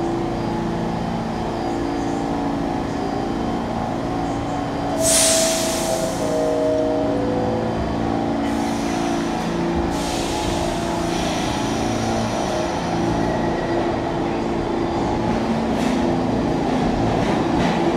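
New York City subway train standing at the platform with a steady hum from its equipment. About five seconds in comes a burst of air hiss and a two-note descending door chime, then more hisses of air as the train gets ready to leave.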